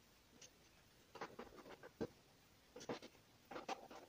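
Faint scraping and clicking of hands handling the edge of an LG LED TV panel, in three short clusters.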